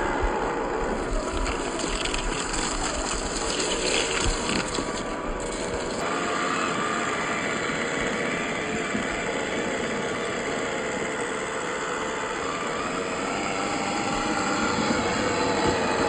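Electric motor and gear drive of a 1/12-scale MN-86KS G500 RC crawler whining steadily as it drives, with crackling noise in the first five seconds. The sound changes abruptly about six seconds in.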